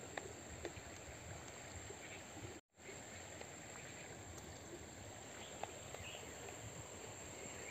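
Faint outdoor ambience: a steady high-pitched insect drone over a soft background hiss, with a few faint small ticks. It cuts out completely for a moment about two and a half seconds in.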